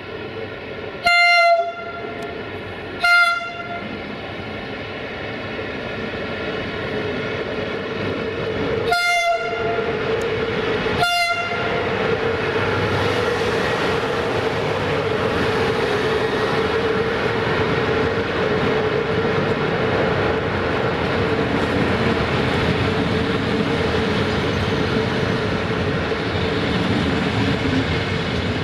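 Electric locomotive horn sounding four short blasts in two pairs, the blasts in each pair about two seconds apart. Then the train's double-deck coaches roll past at low speed, the rumble of wheels on rail building up and holding steady with a hum underneath.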